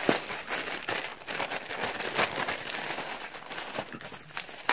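Packaging wrap crinkling and rustling as it is pulled open by hand to unwrap small metal parts, with a few sharper crackles along the way.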